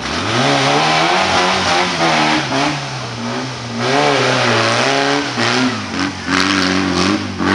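Off-road trial buggy's engine revving hard as it climbs over rock blocks, the revs rising and falling several times.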